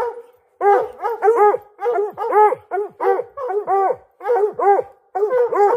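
Several hunting hounds barking over and over, each bark a short arch that rises and falls in pitch, about two a second with some overlapping: hounds baying at a treed bobcat.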